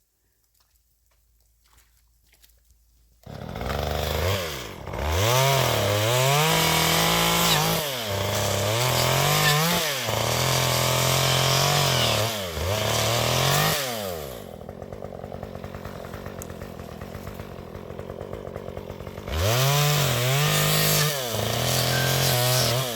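A two-stroke chainsaw starts up about three seconds in and cuts into a fallen tree, its engine revving up and down again and again. It drops to idle for a few seconds about two-thirds of the way through, then revs up again.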